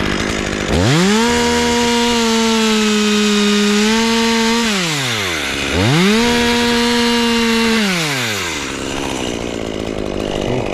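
Two-stroke chainsaw revved up to full throttle twice and held there: about four seconds the first time, about two the second, dropping back to idle between them and afterwards. The pitch sags slightly while it is held, as when the chain is loaded in a cut through wood.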